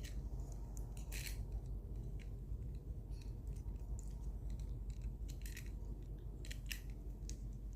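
Scattered light clicks and taps of small plastic Beyblade parts being handled and fitted together, over a low steady hum.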